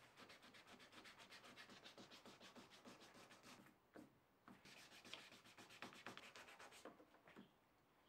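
A sponge pad scrubbed rapidly back and forth on an outboard motor's cowling: faint, quick rubbing strokes several times a second. They break off briefly about four seconds in and stop near the end.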